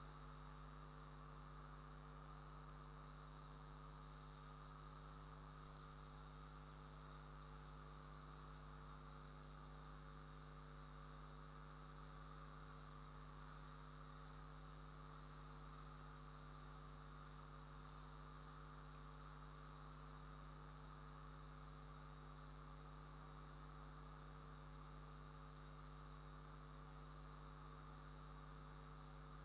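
Near silence: a faint, steady electrical mains hum with light hiss, unchanging throughout.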